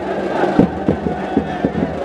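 A crowd shouting and chanting over drums beating a fast, steady rhythm of about four strikes a second.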